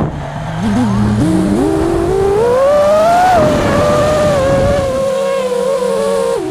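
FPV freestyle drone's brushless motors whining, climbing steadily in pitch over about three seconds as the throttle comes up, then holding a high, steady whine with small wavers near the end.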